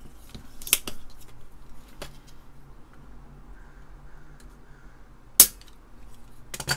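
Spring-loaded desoldering pump (solder sucker) firing with one loud, sharp snap about five and a half seconds in as it sucks up molten solder to clear a solder bridge between closely spaced transistor leads. Lighter clicks come near the start and just before the end.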